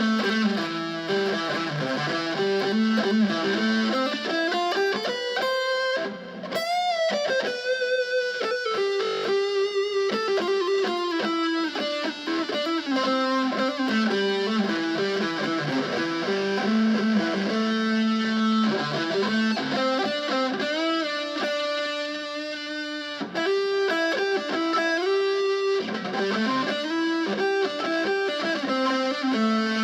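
Fender Stratocaster electric guitar playing a single-note melody, note after note, with a wavering vibrato note about seven seconds in.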